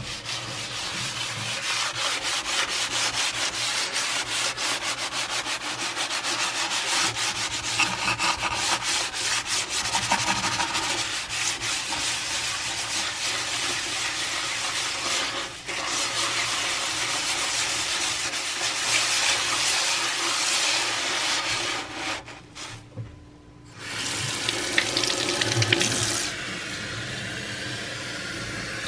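Sponge with coarse salt grains scrubbed hard back and forth over a stainless steel sink, a fast gritty rubbing. It stops briefly near the end, and then tap water runs into the sink.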